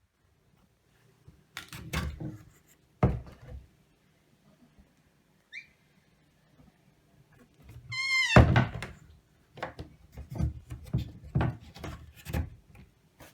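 Irregular thunks and knocks of things being handled and set down, with a brief high squeak just before the loudest thump, about two-thirds of the way in, and a run of quicker knocks near the end.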